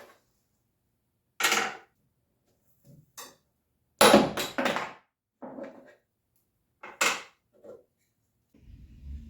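A string of short, sharp scrapes and clacks from small hard G-10 parts being worked by hand, several in quick succession about four seconds in. A low steady rumble comes in near the end.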